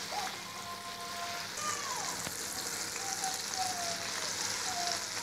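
Hot oil sizzling as chicken pieces deep-fry in a pan, growing louder about a second and a half in and cutting off abruptly at the end. Faint gliding tones sound over the hiss.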